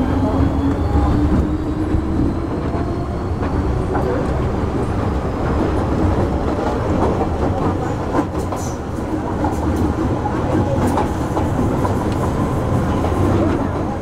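MTR Metro-Cammell EMU motor car running between stations, heard from inside the car: a steady rumble of wheels on rail. A traction whine rises slowly in pitch over the first few seconds, and scattered clicks come from the track.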